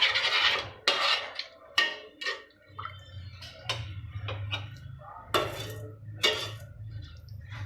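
A spoon clinking and scraping against a metal kadhai in an uneven run of knocks, as vermicelli in sweetened water is stirred while it is brought to the boil.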